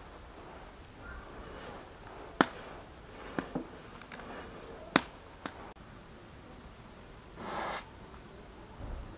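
Wood fire under a saj griddle crackling, with a handful of sharp, irregular pops, the loudest about two and a half seconds in. Near the end a brief rustling swish.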